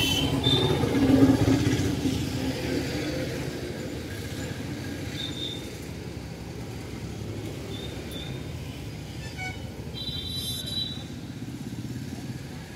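A road vehicle passes close by, loudest about a second in and fading away into steady traffic noise. A short high tone sounds near the end.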